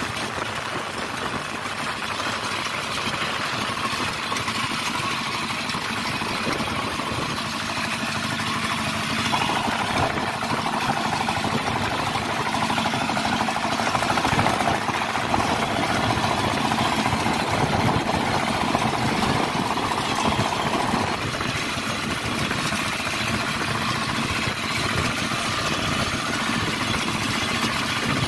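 Hand tractor's single-cylinder diesel engine running steadily under load, pulling its cage wheels through a flooded rice paddy. A slightly louder, brighter stretch runs from about ten seconds to about twenty-one seconds.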